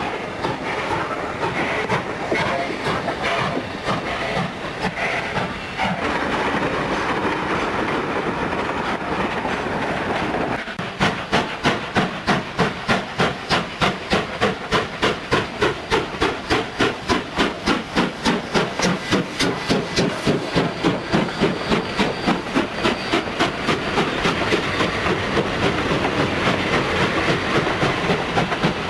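Steam train running: a steady rumbling hiss, then from about ten seconds in a strong, regular beat of about three a second, which quickens near the end.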